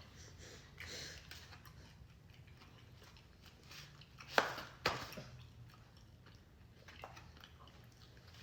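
Chewing food with soft wet mouth sounds, and two sharp clicks a little after halfway.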